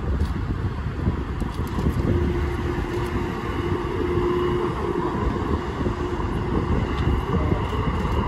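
Electric trains running past on the tracks: a steady low rumble of wheels and motors, with wind buffeting the microphone. A steady hum-like tone holds from about two seconds in for about three seconds.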